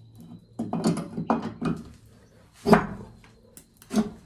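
Clicks and knocks of ceramic fuse carriers and switches being handled on an electric motor starter panel: a run of small clicks, then two sharper knocks about a second and a half apart, over a faint steady hum.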